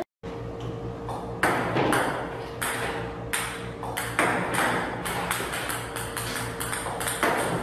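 Table-tennis robot firing ping-pong balls onto the table: a string of sharp ball strikes, roughly one or two a second, each with a short ringing decay, over the machine's steady hum.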